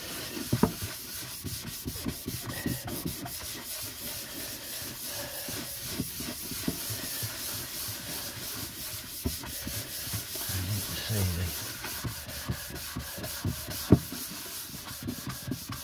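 A cloth pad rubbed quickly back and forth over a smooth wooden box lid by hand, working a finish into the wood in fast scratchy strokes. There is one sharp tap near the end.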